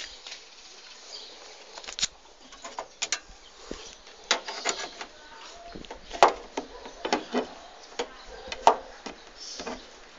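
Scattered clicks, knocks and rubbing from a handheld phone being handled, with fingers brushing close to the microphone. The sharpest knocks come about two, six and nine seconds in.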